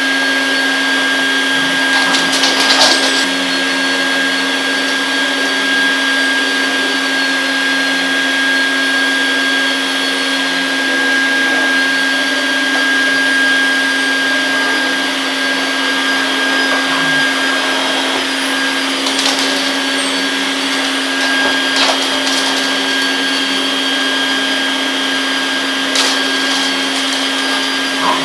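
Vacuum cleaner running steadily with a constant motor hum and whine, with a few brief sharp sounds over it.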